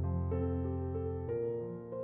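Background instrumental music: a keyboard-like melody of held notes, a new note about every half second.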